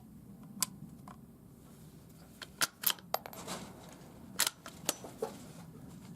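Several sharp, irregular clicks and clinks of small metal gear being handled, with no shots fired.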